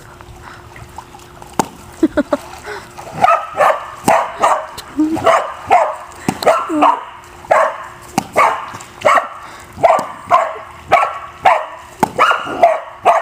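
A dog barking over and over after being deliberately riled up: a few scattered barks, then from about three seconds in a steady run of about one and a half barks a second.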